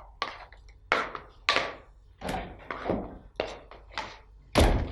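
A series of about nine sharp knocks and thuds, irregularly spaced, with the loudest and heaviest one near the end.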